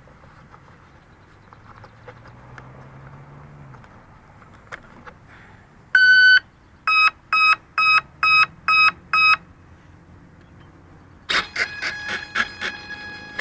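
Electronic beeps from the E-Flite Carbon-Z Cessna 150's speed controller as the plane is powered up and bound: one long tone, then six short, evenly spaced beeps. Near the end, music comes in.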